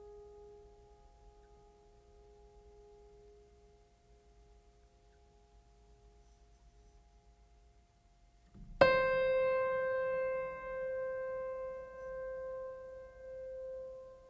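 Sparse keyboard music: faint held notes fade away, then a single struck piano-like note about nine seconds in rings out and slowly decays with a gentle pulsing swell.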